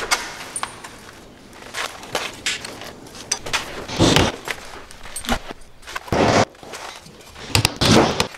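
Hammer tapping wooden shims in between an exterior door jamb and the wall framing: a few separate blows, the last two close together near the end, with footsteps and the jingle of a tool belt between them.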